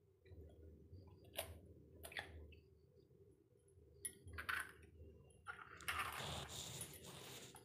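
An egg is tapped against the rim of a bowl to crack its shell, giving two sharp clicks, then a few smaller cracks as the shell is pulled apart. A soft, steady hiss starts near the end.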